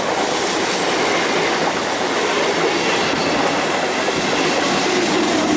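Passenger train running past at speed, with a steady loud rattle and clatter of its wheels over the rail joints.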